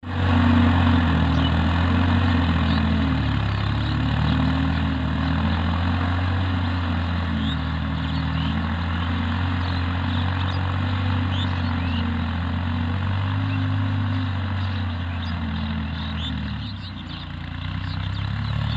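Farm tractor's diesel engine running steadily under load, with a dip in level near the end. Small birds chirp now and then over it.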